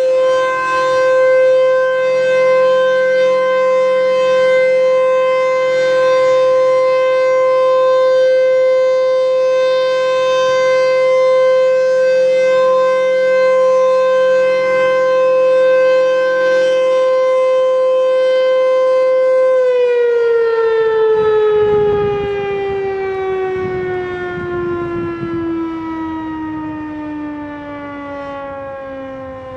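Federal Signal Thunderbolt 1000 tornado siren sounding one steady tone. About twenty seconds in the power cuts, and the pitch slowly falls and fades as the siren winds down at the end of its test.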